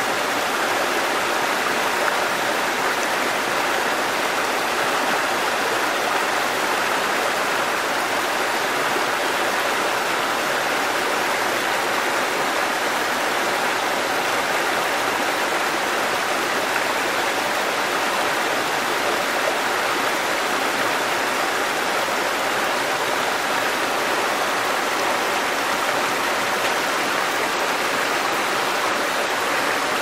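Shallow rocky stream rushing and splashing over small cascades between boulders: a steady, even rush of water.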